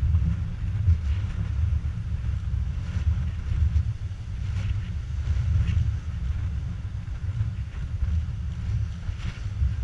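Wind buffeting the microphone in an uneven low rumble, with the wash of surf breaking on rocks fainter beneath it.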